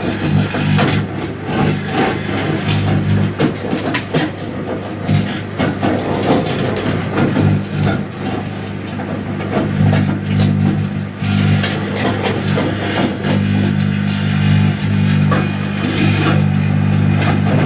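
Microwave oven running with a loud, steady mains-frequency hum, with irregular crackling from lithium metal out of a lithium-ion cell sparking and burning inside.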